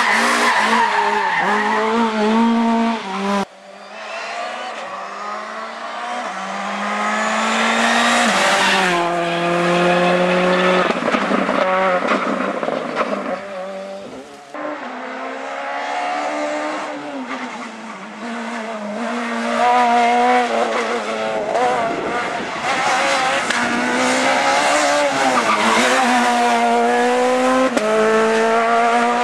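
Rally cars driven flat out one after another, their engines revving high and dropping through gear changes. The sound breaks off abruptly about 3.5 s and 14.5 s in as one pass gives way to the next.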